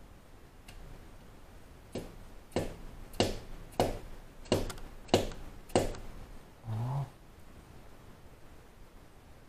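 Hammer tapping new cylinder-head dowel pins down into an engine block: seven sharp, ringing taps about 0.6 s apart, followed a second later by a brief low hum.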